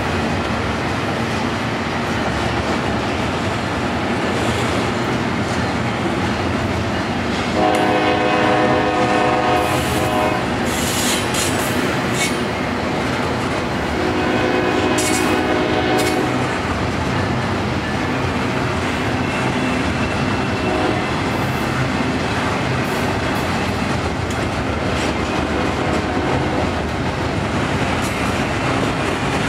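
Double-stack intermodal train's well cars rolling past on the rails with a steady rumble and clickety-clack. A train horn sounds twice, about eight and fourteen seconds in, with brief high wheel squeals between and after.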